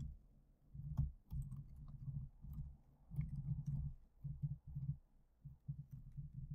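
Typing on a computer keyboard: soft key clicks and low thuds in short, irregular runs.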